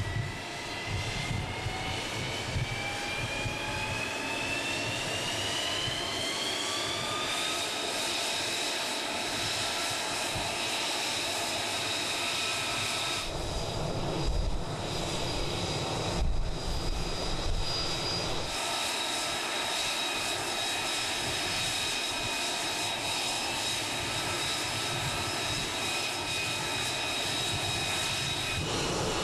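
F-35B's F135 jet engine running up in a tethered hover-pit test: a high turbine whine rises in pitch over the first several seconds as the engine spools up, then holds steady over a loud, even rush of exhaust.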